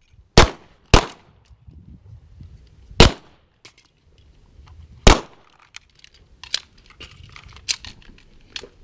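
Pistol gunshots: four loud single shots, two about half a second apart, then one about two seconds later and another two seconds after that, with fainter shots in the second half.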